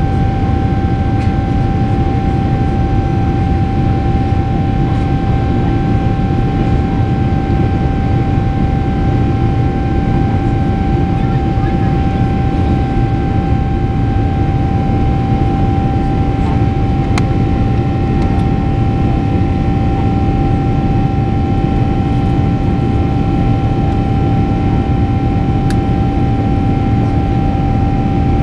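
Boeing 777-300ER's GE90-115B turbofan engine heard from inside the cabin at climb power: a loud, steady rush of engine and airflow with a constant high fan whine over it.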